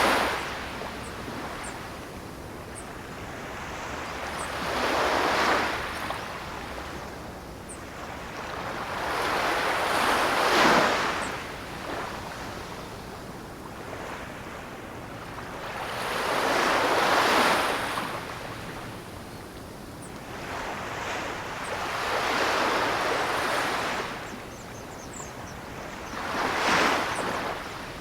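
Ocean waves breaking and washing up the shore in slow surges, each swelling and then falling away, about one every four to six seconds.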